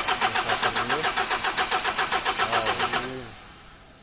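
Starter motor cranking a freshly overhauled Mitsubishi 4D56 four-cylinder diesel without it firing, in about six even compression pulses a second, to bring up oil pressure. The cranking stops about three seconds in and the sound dies away.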